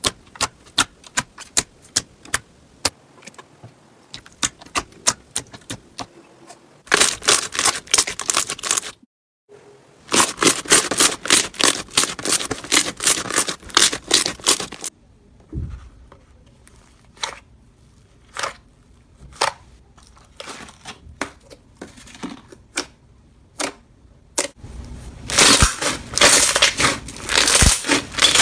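Slime being worked by hand, giving sharp crackling and popping clicks. Scattered single pops run between three dense runs of crackling: one after about seven seconds, a longer one from about ten to fifteen seconds, and one near the end.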